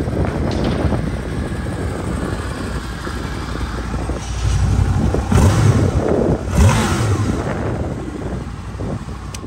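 Honda VFR800's V4 engine running at idle, revved briefly twice, about five and six and a half seconds in.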